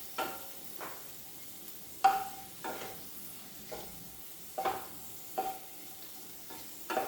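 Sliced garlic sizzling faintly in hot oil in a metal pan while a utensil stirs it. The utensil knocks against the pan at irregular intervals, and each knock rings briefly; the loudest knock comes about two seconds in.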